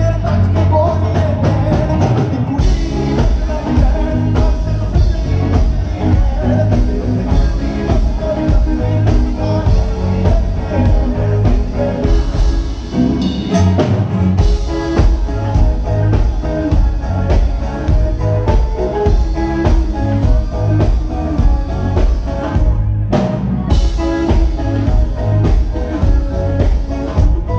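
Live Punjabi pop music played loud through a stage PA: a heavy drum beat with a man singing over it. The music briefly dips and cuts out for a moment near the end before carrying on.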